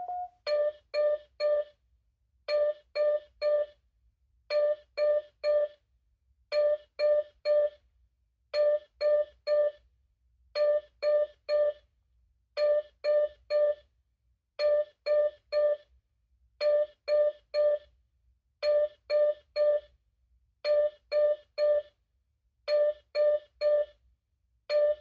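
Spacelabs Ultraview DM3 patient monitor sounding its yellow (medium-priority) alarm: groups of three short beeps, repeating about every two seconds.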